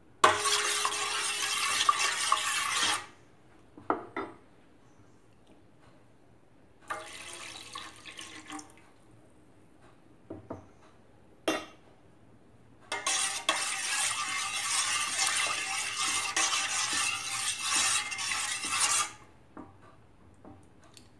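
Milk being poured into watermelon juice in a stainless-steel pan: a splashing pour for about three seconds, then a longer pour of about six seconds in the second half, with a few light clinks of the pan between.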